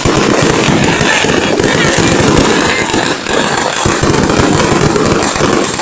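Fireworks going off in a dense, continuous barrage of rapid bangs and crackling, with no pause.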